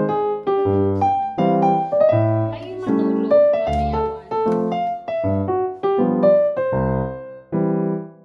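Background music on piano: a steady run of melody notes and chords over deep bass notes.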